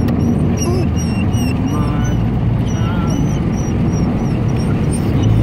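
Wind buffeting and road rumble through an open car window while driving, with a run of short high chirps over it that fades out near the end.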